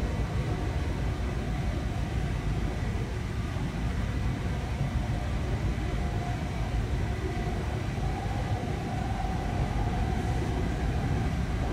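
Passenger train running along the rails, heard from inside the carriage: a steady low rumble of wheels on track, with a faint hum that grows a little stronger past the middle.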